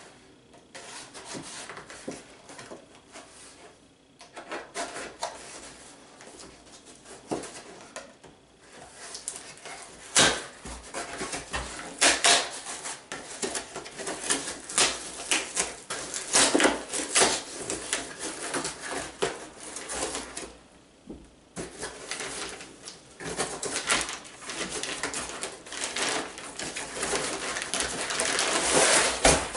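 A knife cutting packing tape and cardboard on a cymbal box, then cardboard flaps pulled open and the packing scraped and rustled as the contents are pulled out. The noise comes as irregular scrapes, tears and sharp clicks, louder and denser from about a third of the way in.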